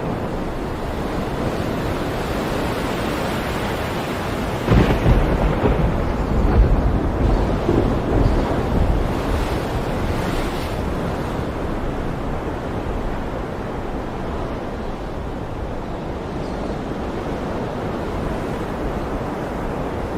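Stormy sea: wind and waves breaking in a continuous heavy rush. A run of louder crashing surges sets in about five seconds in, then it eases back to a steadier roar.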